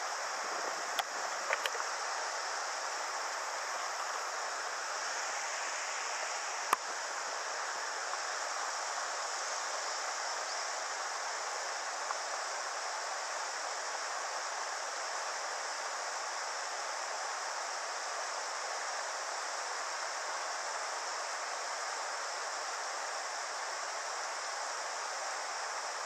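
Steady rushing of a mountain river's rapids. A few short clicks sound in the first two seconds, and a single louder click comes about seven seconds in.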